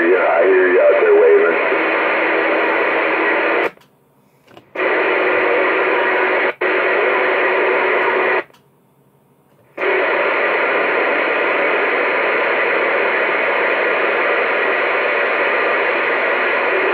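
AM CB radio on the 27 MHz band, its speaker hissing with steady static, a faint voice under it for the first second or so. The static cuts out to silence three times, about 4 s, 6.5 s and 8.5 s in, once only for an instant.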